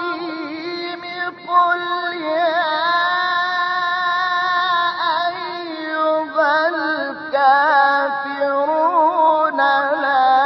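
A solo male voice reciting the Quran in the melodic Egyptian tajweed style, in maqam Nahawand. He holds long notes and ornaments them with wavering melismatic turns, with a short break in the voice a little over a second in.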